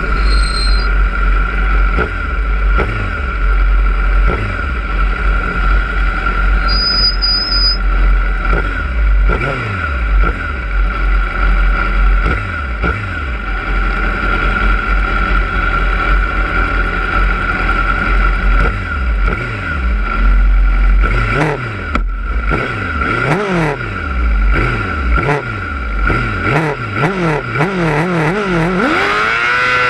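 Grid of 600cc racing motorcycles idling and blipping their throttles while waiting for the race start, engines rising and falling in pitch over and over, more often in the last ten seconds. Near the end the engines rev up together as the race starts.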